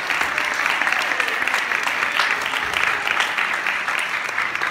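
Audience applauding: many hands clapping together in a dense, steady patter that slowly eases off toward the end.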